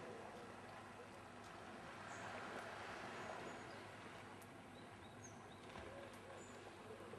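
Faint outdoor ambience: a steady soft hiss with a few brief, high chirps from small birds.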